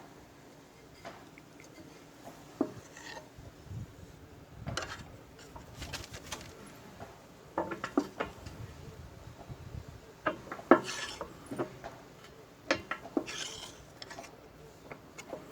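Irregular metallic clinks and knocks from a small ratchet's steel parts and hand tools being handled and worked at a bench, with a few sharper knocks in the second half.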